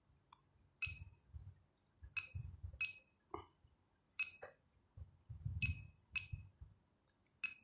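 70mai Pro dash cam giving short electronic beeps as its buttons are pressed to work through the settings menu: about seven beeps at uneven intervals, with soft thuds of the unit being pressed and handled.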